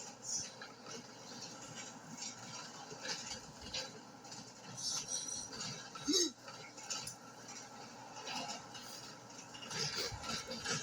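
Scattered clinks and rattles of small hard objects being handled, with a brief squeaky vocal sound about six seconds in.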